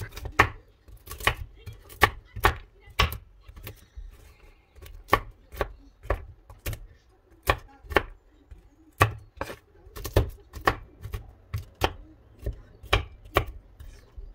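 Kitchen knife chopping walnuts on a wooden cutting board: a run of sharp knocks of the blade against the board, about two or three a second and somewhat uneven.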